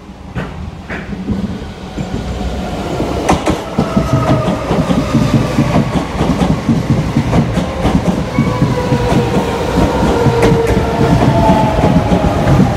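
Electric train on the East Coast Main Line running past on the track, its wheel noise growing louder over the first few seconds, with a faint whine that slowly falls in pitch.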